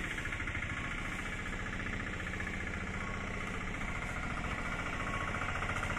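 An engine running steadily close by, with a fast, even pulse.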